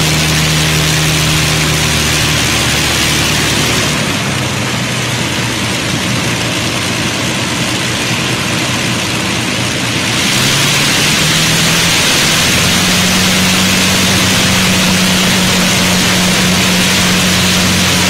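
Avro Lancaster's four Rolls-Royce Merlin piston engines running at low power as the bomber taxis, a steady deep drone. It grows quieter for several seconds near the middle, then louder again.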